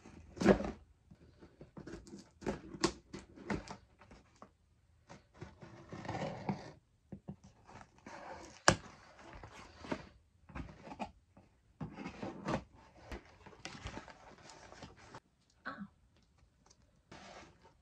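A cardboard shipping box being cut open with scissors and its flaps pulled open and handled: irregular scrapes, rustles and taps of cardboard and tape. There is a loud thunk about half a second in and a sharp click about nine seconds in.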